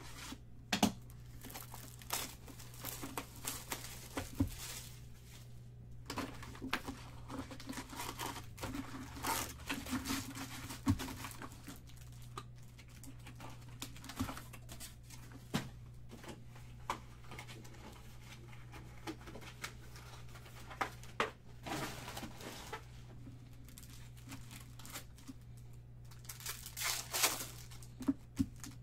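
Foil trading-card packs from a Topps Chrome baseball hobby box crinkling and tearing as the box is opened and the packs are handled, in irregular crackles that bunch up near the end.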